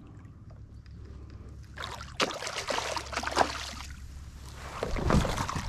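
A hooked redfish thrashing and splashing at the surface beside a kayak. The splashes come in bursts from about two seconds in, with another burst near the end.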